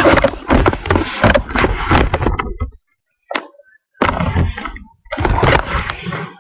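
Rustling and knocking handling noise on a laptop's built-in microphone as the laptop is carried and jostled, in three or four broken spells with short silent gaps.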